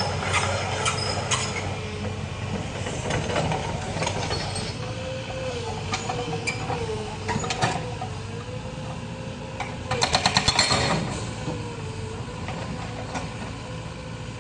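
Caterpillar 307 excavator running steadily with scattered metal clanks; about ten seconds in, its hydraulic breaker hammers in a rapid burst for about a second.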